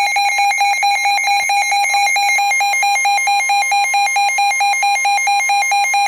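Emergency Alert System attention signal: the harsh, steady two-tone alert tone that announces a broadcast severe thunderstorm warning. It cuts off abruptly right at the end.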